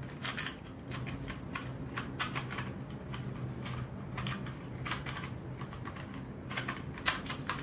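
A 2x2 puzzle cube being turned quickly by hand: rapid, irregular clicking and clacking of its plastic layers.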